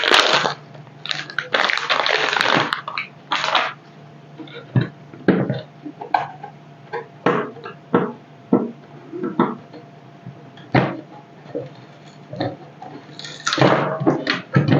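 Hands handling a hard drive and its data and power cables against the DVR's case: a few brief rustling bursts, with scattered clicks and light knocks between them.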